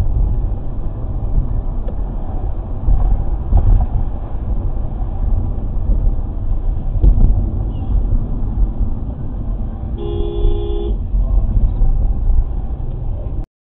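Low, steady road and engine rumble inside a moving car. About ten seconds in, a car horn sounds once for about a second. The sound cuts off suddenly just before the end.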